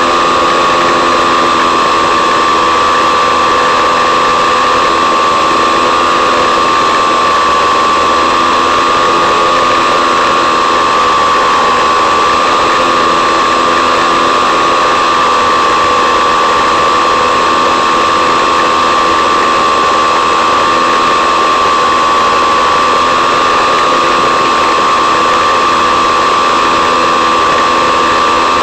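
Electric motor and propeller of an FPV model plane running steadily at low throttle, heard from on board: a steady whine that wavers slightly in pitch, over a constant hiss.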